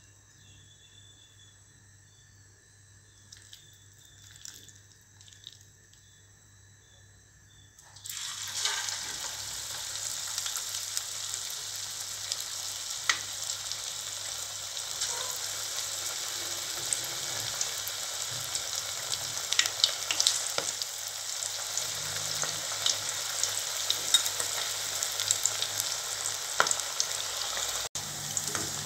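Near silence for about eight seconds. Then batter-coated ivy gourd (kovakkai) pieces drop into hot oil in a steel kadai, and it starts abruptly into a steady deep-fry sizzle with many sharp crackles and pops.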